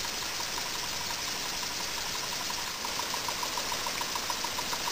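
Small model double-acting oscillating steam engines running on compressed air: a steady hiss with a faint, fast, regular ticking as the cylinders rock and exhaust.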